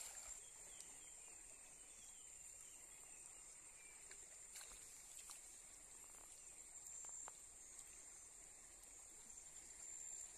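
Near silence: a faint, steady high-pitched hiss, with a few faint clicks.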